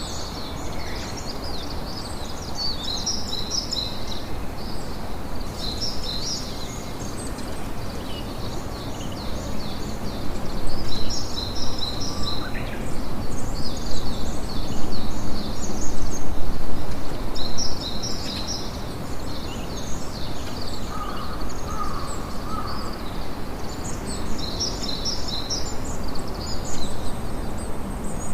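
Sea surf and wind make a steady rushing that swells louder for several seconds around the middle. Small birds chirp in quick high bursts throughout.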